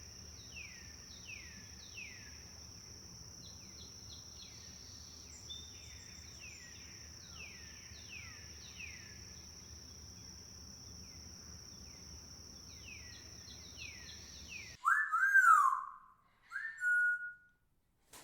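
Birds calling: a run of short whistled notes, each sliding down in pitch, repeating every half second or so over a steady high-pitched drone. About 15 seconds in, the background stops suddenly and two loud whistled calls follow.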